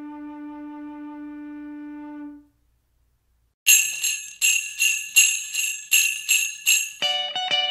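An Irish whistle holds one low note that ends about two seconds in; after a second of silence, jingle bells are shaken in a steady rhythm of about three shakes a second, and plucked guitar notes join near the end.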